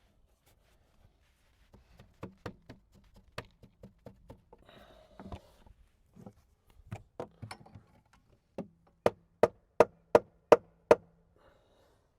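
Wooden cover board being knocked over to straighten it: scattered light taps, then a run of about seven harder knocks, about two and a half a second, near the end.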